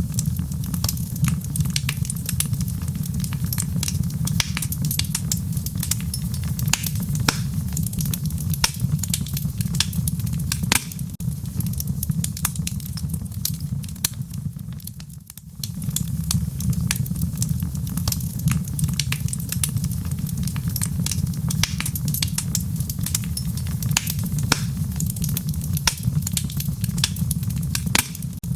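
Wood fire burning in a fireplace: irregular sharp crackles and pops over a steady low rumble, which briefly dips about halfway through.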